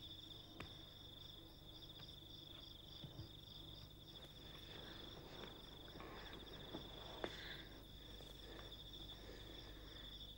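Faint, steady trill of crickets chirping at night in an even pulsing rhythm, with a few soft rustles and small clicks.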